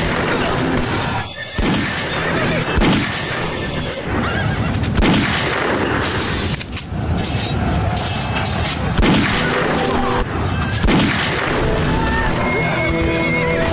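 Horses neighing again and again amid gunshots, in a war-film battle soundtrack.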